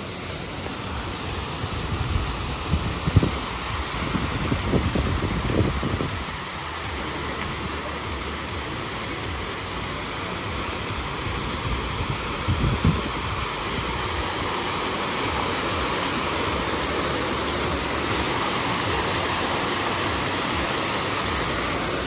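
Steady rush of falling water that grows slowly louder, with a few low bumps in the first six seconds and once more about twelve seconds in.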